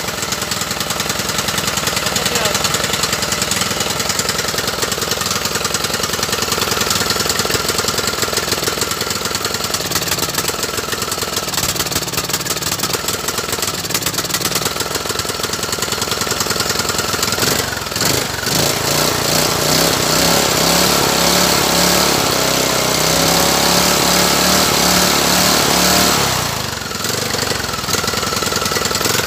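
Husqvarna mower's small engine running, with a rapid pulsing beat. Its note changes about two-thirds of the way through, dips briefly, then returns to the earlier sound near the end.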